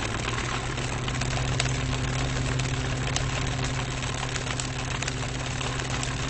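Old electric fan running steadily up close, with a low motor hum under the rushing air and faint irregular ticks from the fan.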